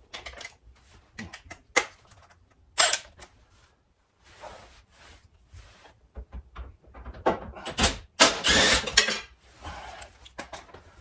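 Wrench or ratchet undoing the 12 mm bolt on the brake line bracket of a front strut: scattered metallic clicks and knocks, with a quicker run of rattling about eight seconds in.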